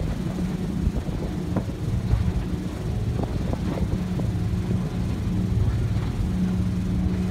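Tour boat's engine running with a steady low drone while under way, with wind buffeting the microphone.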